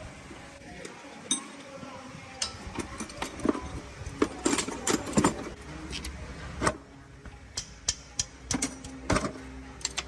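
Irregular metallic clicks, clinks and knocks of hand tools and metal parts being handled, a few quick taps clustered in the middle and again near the end.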